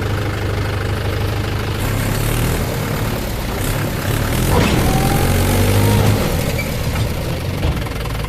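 Heavy diesel engines of a backhoe loader and a tractor running steadily. About four and a half seconds in, the revs rise and the engine gets louder under strain for a second or two as the bogged-down tractor is pushed out of the soft mud, then it settles back.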